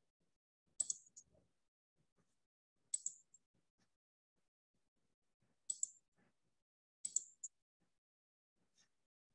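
Computer mouse clicking: four short clusters of sharp clicks, a couple of seconds apart, each with two or three clicks in quick succession, against near silence.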